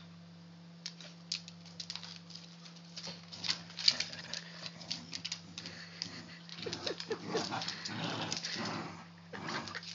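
A bulldog and another dog playing tug of war with a rope toy on a wooden floor: scuffling and sharp clicks of claws and jaws, with dog noises that get busier and louder in the second half. A steady low hum runs underneath.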